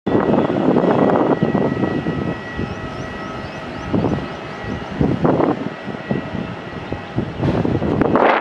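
Airbus A330-300's Rolls-Royce Trent 700 engines on final approach, a steady whine of the fans, with landing gear down. Gusty wind noise on the microphone rises and falls over it.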